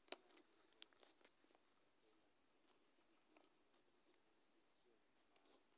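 Faint steady night chorus of crickets and other insects chirring in grassland. A few short clicks in the first second or so.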